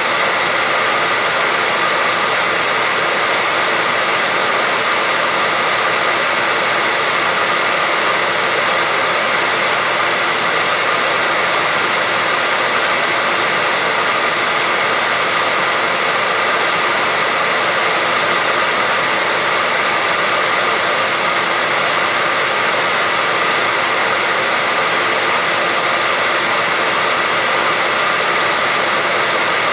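Hair dryer running steadily: an even rushing blow with a faint constant whine, unchanging throughout.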